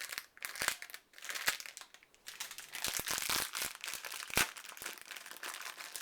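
Plastic packaging crinkling and rustling as it is handled, with irregular crackles and a few sharp clicks.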